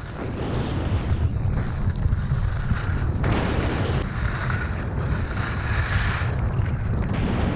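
Skis hissing and scraping over snow on a downhill run, the sound swelling and fading with the turns, under a heavy low rumble of wind on the microphone.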